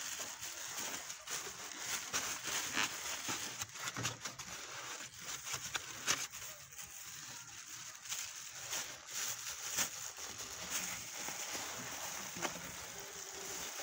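Plastic bags rustling and crinkling in irregular crackles as they are crumpled and pushed into a mesh sack to pack a homemade ball.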